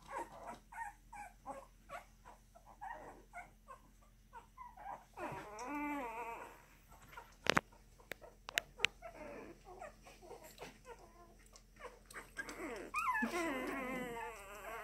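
Two-week-old bully puppy squeaking and whimpering in a string of short peeps. A longer wavering cry comes about five seconds in, and another near the end. A few sharp clicks fall around the middle.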